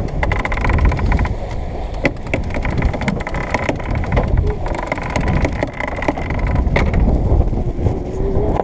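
Wind buffeting the microphone and water rushing along the hull of a sailing yacht moving under sail, with bursts of rapid clicking and rattling in the first second and again through the middle.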